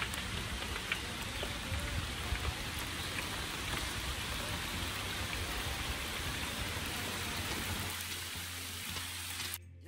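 Heavy rain pouring onto the surface of a lake, a steady hiss of countless drops with scattered sharper patters, cutting off suddenly near the end.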